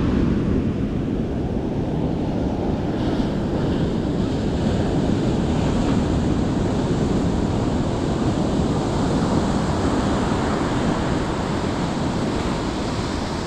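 Steady ocean surf washing on the beach, with wind rumbling on the microphone.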